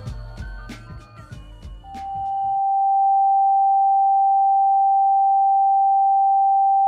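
A hip-hop beat with drum hits and sampled instruments cuts off about two and a half seconds in. Meanwhile a single steady pure tone swells up and holds at one pitch, loud, like a test-tone beep.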